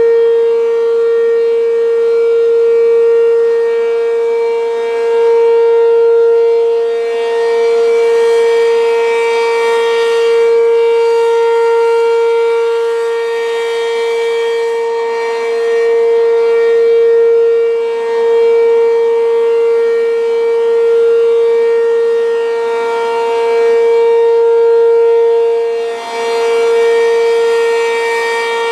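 ACA P-15 (Penetrator 15) eight-port rotating civil defense siren sounding its steady alert tone at full speed. The pitch holds level throughout, while the loudness swells and fades every few seconds as the rotating horn sweeps toward and away from the listener.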